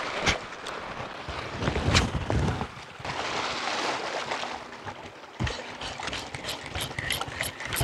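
Wind buffeting the microphone over sea ambience, with low thumps in the first half and a quick run of sharp clicks near the end.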